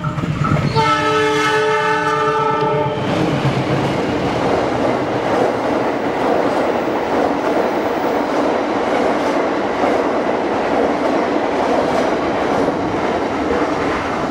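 A train's multi-tone horn blows, breaks off briefly and sounds again until about three seconds in, then gives way to the steady noise of train cars rolling past on the rails.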